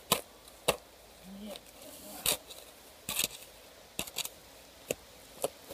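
A shovel digging into stony soil: a series of irregular sharp chops and scrapes, about eight in all.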